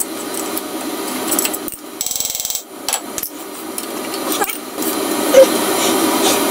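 Handling noise from the car's front hub and brake caliper being shifted by hand: metal scraping and knocking, with a quick run of fine clicks about two seconds in and a sharp knock about five seconds in.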